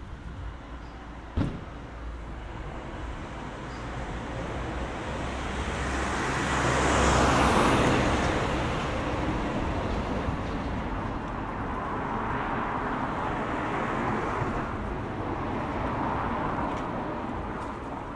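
Cars passing along a town street. The nearest swells up to a peak about seven seconds in and fades away, with more passing traffic after it. A single sharp knock sounds about a second and a half in.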